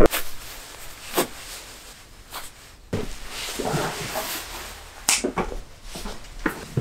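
Nylon duffel bag being handled: zipped shut, swung onto a shoulder and carried, with soft fabric rustling and a few light knocks and clicks.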